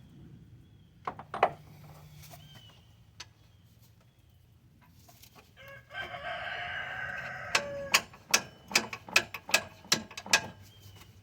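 A rooster crows once, about six seconds in, for a second and a half, ending on a falling note. Near the end comes a run of about a dozen sharp clicks, roughly three a second.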